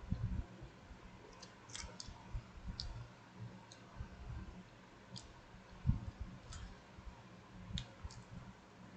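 Scattered faint, sharp clicks, about a dozen at irregular intervals, with soft low thumps underneath, the loudest thump about six seconds in.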